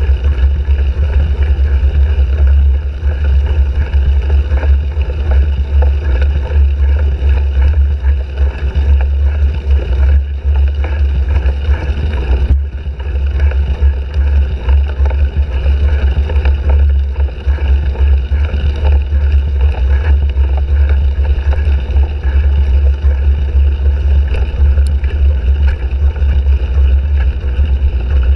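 Steady, loud wind rumble on a bicycle-mounted GoPro Hero 3's microphone while riding, a deep buffeting with rough, rattly noise over it and no let-up.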